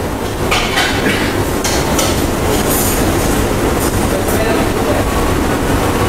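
Steady, loud rumble of a commercial kitchen's ventilation, with a few light clicks and taps of small decorating tools.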